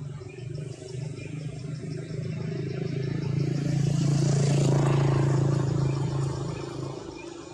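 A motor vehicle's engine passing by: a steady low hum that grows louder to a peak about four to six seconds in, then fades.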